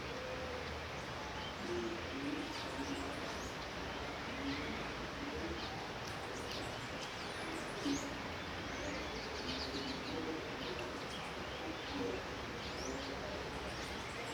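Steady light rain falling, with short low-pitched calls and brief high chirps scattered through it.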